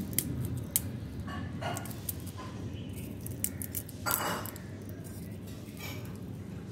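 Dry, papery egg case of a praying mantis (ootheca) crackling and clicking as it is cut with a knife and broken apart between the fingers, with a short louder rasp about four seconds in, over a low steady rumble.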